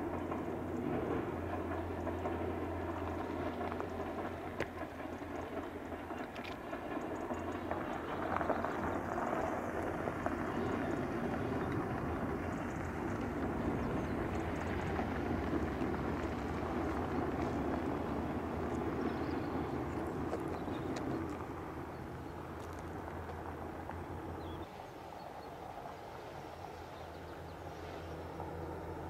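Distant passenger train running along the line, a steady rumble of wheels on rails with a low hum beneath; it grows quieter about three-quarters of the way through.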